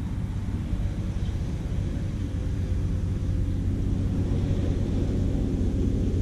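A steady low engine drone with an even hum, growing a little louder about two seconds in.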